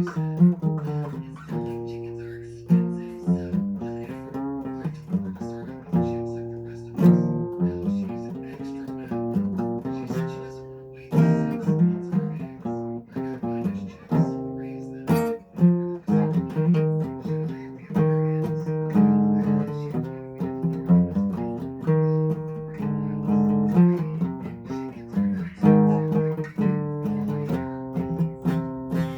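Acoustic guitar played solo, a steady run of picked and strummed chords with notes ringing out and changing about once a second.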